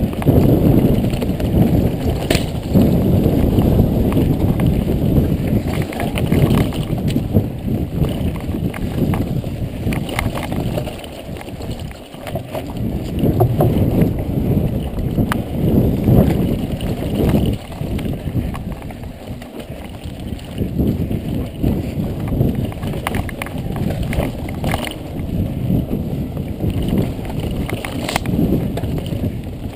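Wind buffeting the microphone while a mountain bike is ridden along a dirt trail, with frequent clicks and knocks of the bike rattling over the ground. The rush eases briefly about twelve seconds in.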